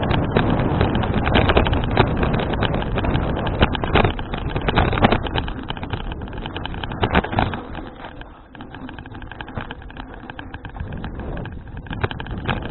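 Wind buffeting an action camera's microphone during a bicycle ride, with frequent sharp clicks and rattles. The noise drops and becomes quieter about seven or eight seconds in.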